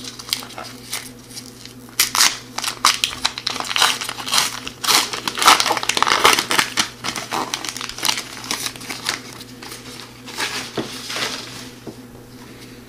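Plastic wrapper of an O-Pee-Chee hockey card pack being torn open and crinkled as the cards are slid out, in irregular crackles that are busiest in the middle and thin out near the end.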